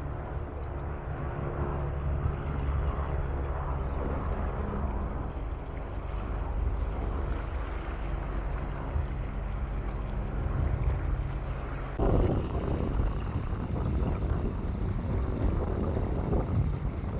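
A boat engine hums steadily under wind rumble on the microphone. About twelve seconds in the engine hum stops and rougher wind and water noise take over.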